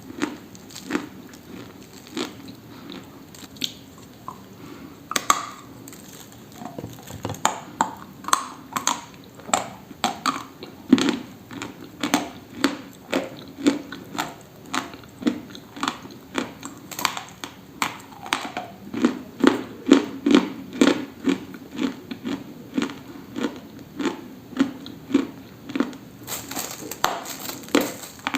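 Dry, brittle crunching: sparse crunches at first, then a steady rhythm of about two crunches a second from about seven seconds in.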